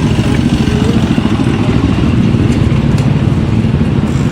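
Wind buffeting the microphone, a loud, steady, fluttering rumble.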